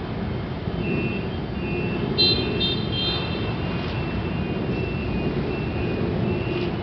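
Dozens of motorcycles riding past in a steady mass engine rumble. Short high beeps come and go over it, the loudest a quick series about two seconds in.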